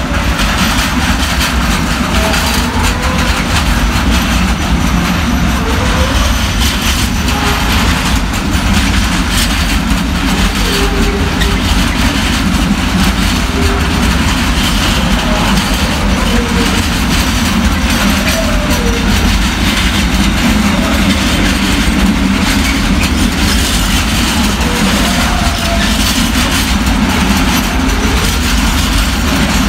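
Container freight train passing: the wheels of the loaded flat wagons give a steady, unbroken rolling noise on the rails.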